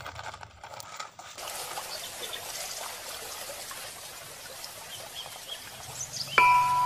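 A steady hiss with a few faint high chirps. Near the end, bright struck chime notes begin loudly, the first of a mallet-percussion tune.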